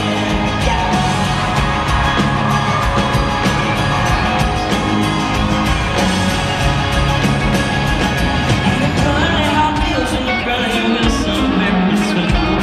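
Live band playing a country-rock song, with electric guitar, a male voice singing, and yells from the crowd.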